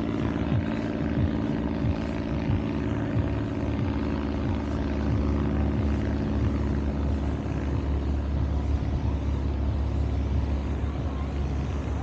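Steady drone of a small propeller-driven banner-towing plane's engine overhead, over a constant low rumble.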